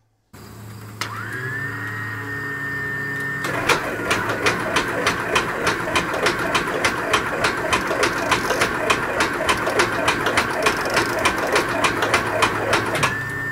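The piston engine of a twin-engine light aircraft is being cranked on its electric starter. A high starter whine is followed, about three and a half seconds in, by the engine turning over with even compression beats about four times a second, and it never fires. The engine won't catch after 37 years of sitting, and the owner wonders whether there isn't enough fuel in the system.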